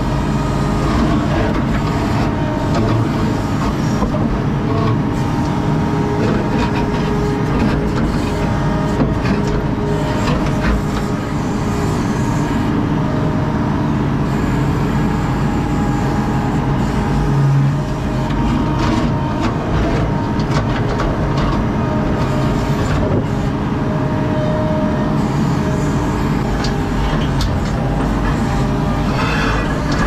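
ASV RT-40 compact track loader's diesel engine running steadily under load, heard from inside the cab, with knocks and clatter as its bucket pries up and pushes broken concrete slabs.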